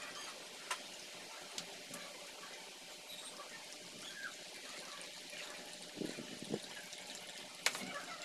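Hot water poured in a thin stream from a gooseneck kettle onto coffee grounds in a V60 dripper: a steady trickle. A few sharp clicks and a couple of soft knocks come from the kettle and brewing gear being handled.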